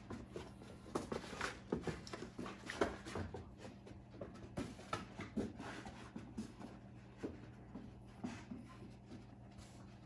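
Irregular soft rustles and light taps of a young retriever moving and sniffing among cardboard scent boxes on carpet, over a steady low hum.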